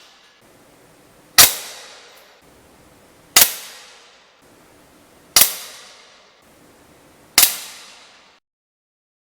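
Hatsan AT44 .177 PCP air rifle firing four shots about two seconds apart, each a sharp crack with a short fading ring.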